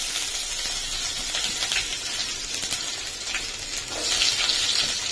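Chopped garlic, cumin seeds and ginger sizzling in hot oil in a steel pan: a steady hiss with scattered crackles, growing louder about four seconds in.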